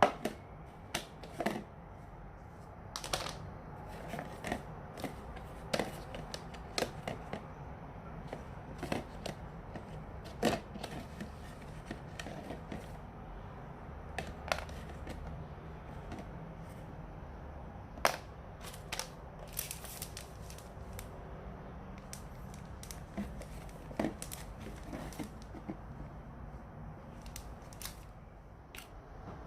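Irregular sharp clicks, taps and light rustling of small objects being handled by hand, some strokes a second apart and others several seconds apart, over a low steady hum.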